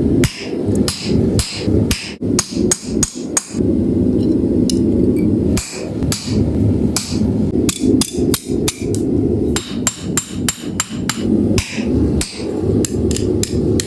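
Hammer blows struck in quick runs of several strikes, with a short pause between runs, over a steady low hum.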